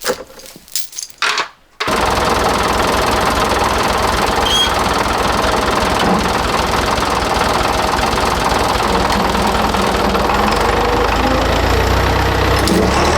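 A few short knocks, then about two seconds in a tractor engine comes in abruptly and runs loud and steady, its low rumble growing stronger near the end as the tractor pulls.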